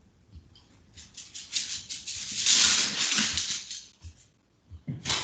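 Rustling, crackly handling noise that swells over about two seconds and fades away, with a brief burst of the same noise near the end.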